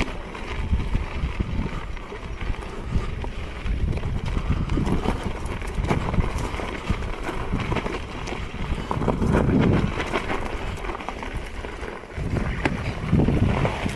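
Electric unicycle riding over a rough, stony trail: wind buffeting the microphone with irregular knocks and crunches from the tyre on the ground, swelling louder a few times.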